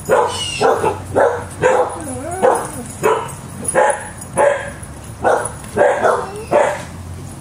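Dog barking repeatedly, about a dozen sharp barks at an even pace, in excited alert barking at someone arriving home, over a low steady hum.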